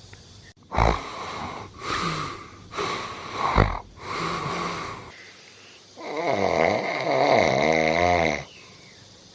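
A man snoring in his sleep: four short noisy breaths about a second apart, then a longer snore with a wavering pitch from about six to eight and a half seconds in.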